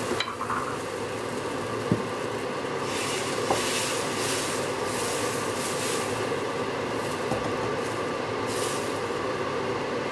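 Steady rushing kitchen hum over which a ladle scrapes and swirls crêpe batter around a non-stick frying pan, with a couple of light knocks early on.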